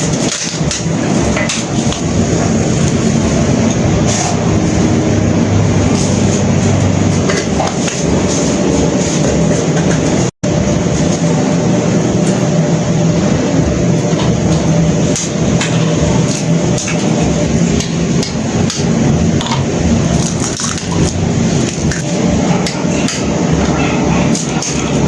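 Repeated sharp knocks of kitchen work over a steady background hum.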